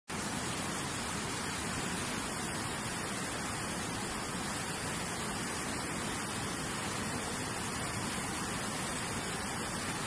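A fast whitewater river rushing over rocks: a steady, unbroken noise of running water.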